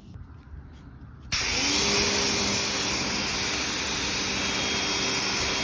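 Ryobi 2000 psi electric pressure washer starting about a second in, its motor and pump quickly spinning up, then running steadily with the loud hiss of the spray.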